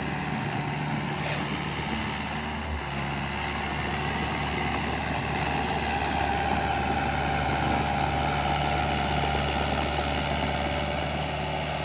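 Doosan DX55 mini excavator's diesel engine running steadily as the machine works the fill, its low note shifting about three seconds in. A single short knock about a second in.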